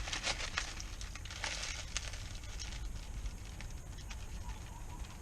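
Steady low wind rumble on the microphone, with crinkling and clicking handling noises, most of them in the first two seconds.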